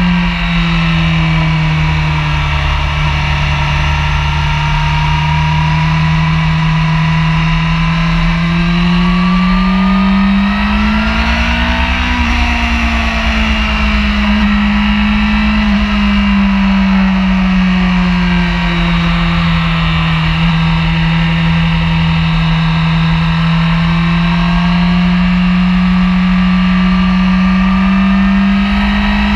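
Honda sportbike engine running at speed, heard from an onboard camera with wind rumbling on the microphone. The engine note rises to a peak about twelve seconds in, falls back, then climbs slowly again near the end.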